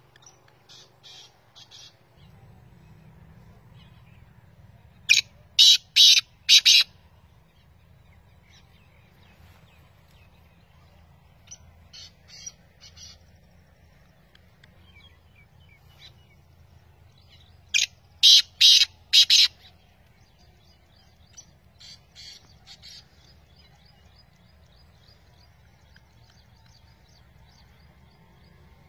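Male black francolin calling: a loud harsh phrase of about five clipped notes, given twice, about five and about eighteen seconds in, with fainter phrases of the same kind in between.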